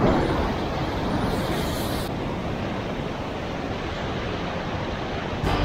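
Sea surf surging and breaking against the rocks below, a steady rushing noise, with wind on the microphone.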